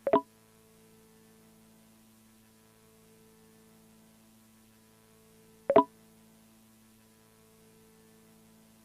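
Faint steady electrical hum with two short pops, one right at the start and another about six seconds in.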